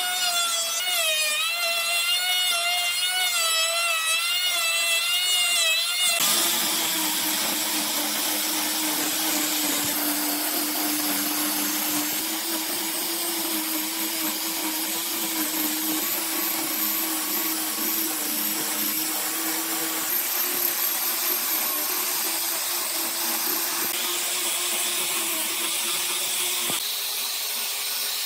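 Electric hand planer running across a wooden tabletop with a wavering whine. About six seconds in it gives way abruptly to an angle grinder with a sanding disc working the wood surface: a steady hum over a rough, even sanding noise.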